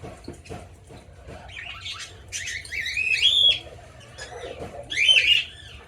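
Small parrots in a mixed aviary calling: fainter calls at first, then squawking calls that rise and fall in pitch, loudest in a burst from about two to three and a half seconds in and another about five seconds in.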